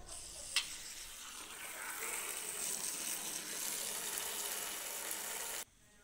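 Water running in a steady hissing stream, with a single sharp click shortly after it starts; the flow stops abruptly near the end.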